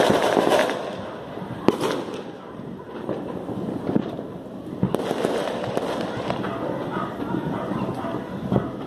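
New Year fireworks going off across the neighbourhood: a continuous crackle of bursts with several sharper, louder bangs a few seconds apart.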